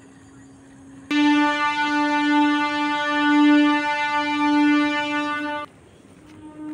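A horn sounding one long, steady, loud note for about four and a half seconds, starting and stopping abruptly. It sounds again briefly near the end.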